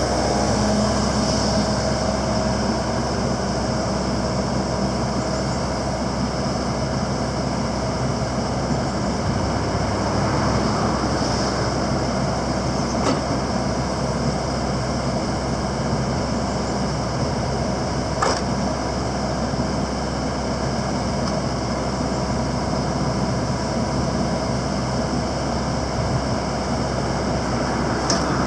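Komatsu PC78 hydraulic excavator running steadily, its diesel engine and hydraulics working as the arm and quick coupler are operated. A few short sharp metallic clicks, the clearest about 18 seconds in.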